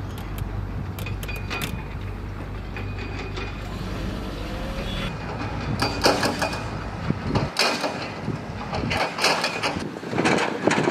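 Heavy construction machinery at work: a diesel engine's steady low drone with scattered clanks and knocks. About seven and a half seconds in, the engine drone drops away and a denser clatter of knocks and rattles goes on.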